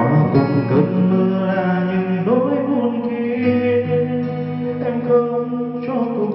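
A man singing karaoke into a wireless microphone over a backing track, amplified through a Ronamax MV18 trolley karaoke speaker with a 15-inch bass driver. The melody is sung in long held notes.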